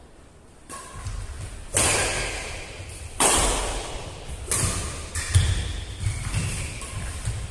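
Badminton rackets striking a plastic shuttlecock in a doubles rally: sharp hits about a second to a second and a half apart, each ringing on in the hall's echo, with players' shoes thudding on the court.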